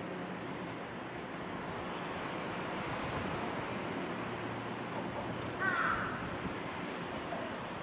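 A crow caws once, a short call about two-thirds of the way through, over a steady rushing background noise.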